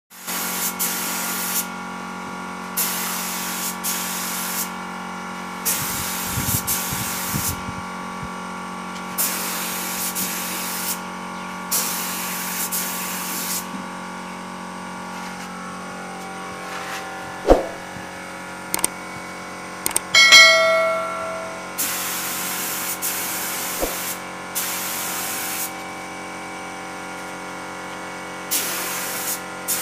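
Compressed-air gravity-feed spray gun spraying PU wood polish in repeated bursts of hiss, each one to two seconds long, as the trigger is pulled and released, over a steady machine hum. About halfway through, a sharp knock and then a brief ringing tone are the loudest sounds.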